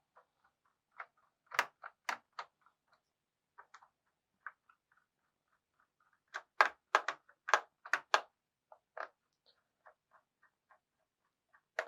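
Screwdriver working the small screws of a laptop's plastic bottom cover: a run of small irregular clicks and ticks, sparse at first and thickest and loudest for about two seconds past the middle.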